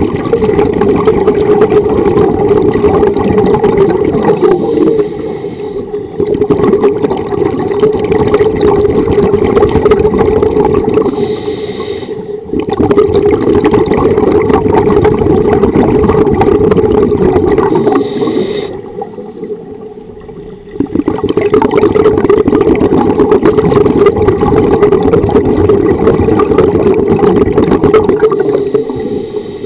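Scuba divers' exhaled bubbles streaming from their regulators, heard underwater through the camera housing: loud, muffled bubbling in stretches of several seconds, broken by brief quieter gaps between breaths about every seven seconds.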